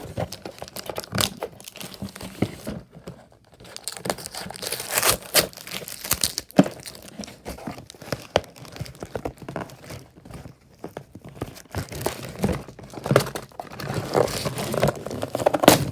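Toy box packaging crinkling, rustling and tearing in irregular bursts as it is pulled and ripped apart by hand to free the toy truck.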